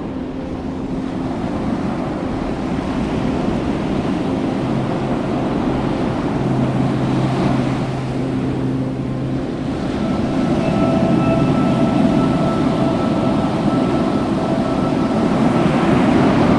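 Ocean surf breaking on a beach, with wind buffeting the microphone.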